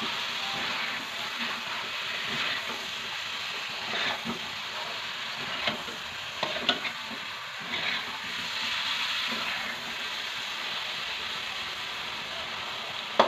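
Sweet potato chunks sizzling in a wok with sugar, stirred and turned with a metal spatula that scrapes the pan a few times around the middle.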